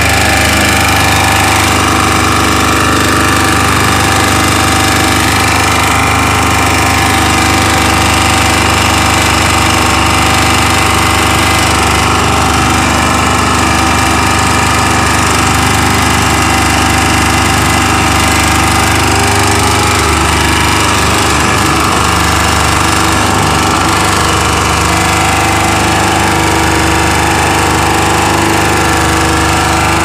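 A 2000-watt Chinese portable generator's small single-cylinder petrol engine running steadily at close range, making a noise that its owner finds strange.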